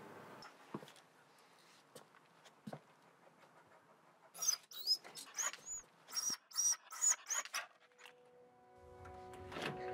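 Cocker spaniel whining in a quick run of short, high-pitched whimpers lasting a few seconds, with a few faint clicks before it. Music fades in near the end.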